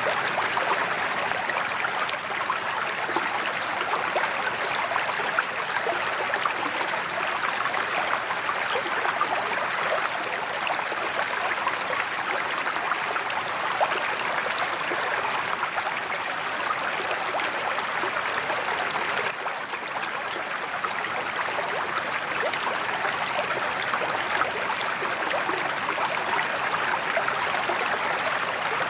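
A sheet waterfall spills steadily into a koi pond, its water splashing on the pond's surface.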